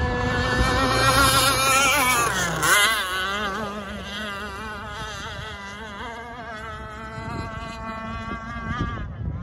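Enforcer Stingray RC hydroplane's motor running flat out in a high-pitched whine. The pitch climbs and then drops sharply about two and a half seconds in as the boat sweeps close past. After that the pitch wavers and the sound eases off as it runs away.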